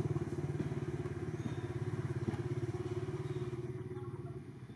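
A small engine running steadily, a low throb with a fast, even pulse, easing off a little near the end.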